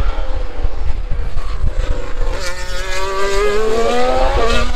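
Formula 1 car's turbocharged V6 hybrid engine under power, its pitch rising steadily for about two seconds, then dropping suddenly near the end, over a steady low rumble.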